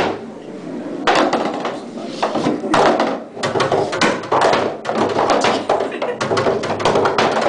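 Skee-ball balls rolling up a wooden lane and knocking into the scoring rings: a string of thuds and clunks.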